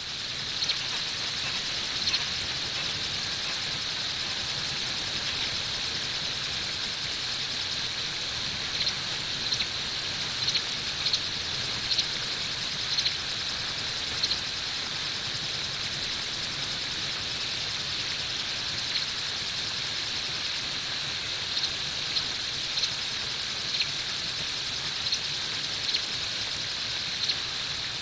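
Designed sound effect of alien crickets: a steady high-pitched chirring with a fast fine pulse, dotted with brief sharper chirps that come more often in the second half.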